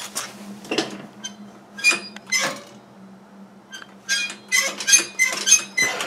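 Metallic clicks and clacks of a homemade go-kart's throttle linkage being worked by hand, the return spring snapping the cable and pedal parts back. There are a few single clacks in the first half, then a quicker run of about six near the end.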